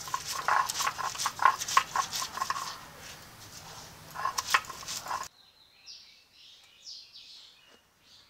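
Stone grinder (nora) crushing dried red chillies on a flat grinding slab (shil): a quick, irregular run of gritty knocks and crackles. About five seconds in it stops abruptly, leaving faint birds chirping.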